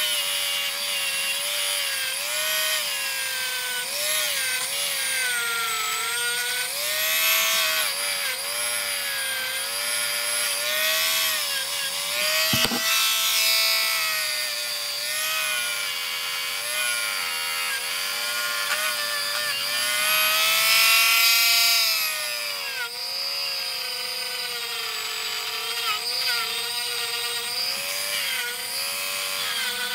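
Handheld rotary tool running at high speed, a continuous whine whose pitch keeps dipping and recovering as the spinning bit is pressed against the rusty steel of an old monkey wrench part to clean it up.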